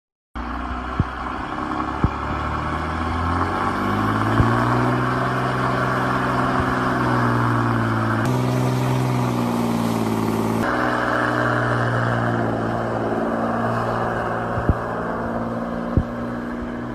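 Engine running, speeding up about three to four seconds in and then holding a steady speed, with a few sharp knocks here and there.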